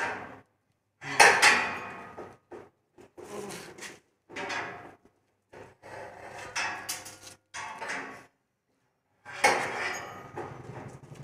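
Corrugated steel rolling shutter rattling and clattering in about seven separate bursts as it is pushed and levered by hand and with a rod.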